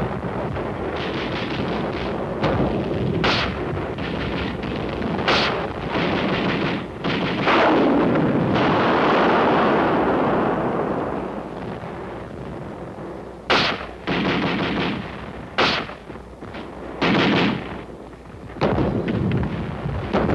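Battle sounds of gunfire and exploding shells: sharp reports every couple of seconds over a continuous noisy din, with a longer, loud blast about eight seconds in.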